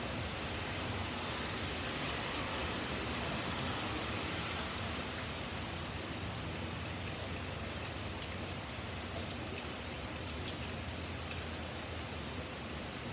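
Steady rain falling on a wet paved driveway and plants: an even hiss, with scattered close drops ticking more often in the second half.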